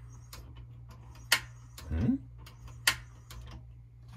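Gas stove igniter clicking: three sharp clicks about a second and a half apart, over a steady low hum.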